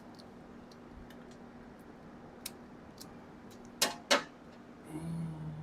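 Scattered sharp clicks and snaps from hand tools working at a truck's wiring, the two loudest close together about four seconds in. A short low hum comes near the end.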